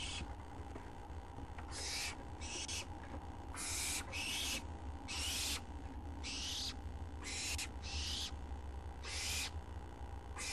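Owlets giving begging calls: a string of short hissing screeches, roughly one a second, each lasting under half a second, as food arrives at the nest.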